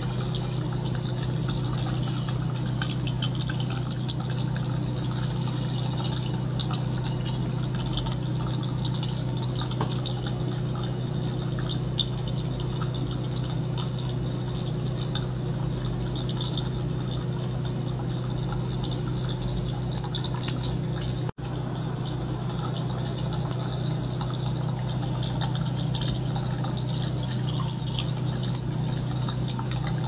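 Water circulated by a small pump, trickling and bubbling through tubing into a tank over a steady low hum, with fine dripping ticks. The sound drops out for an instant about two-thirds of the way through.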